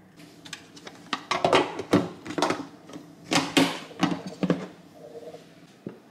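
Kitchenware being handled on a counter: a quick run of about a dozen clattering knocks and clinks, most of them in the middle of the stretch.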